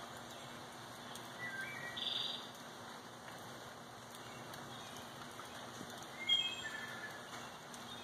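Steady rain falling, with short bird calls about two seconds in and again around six to seven seconds in.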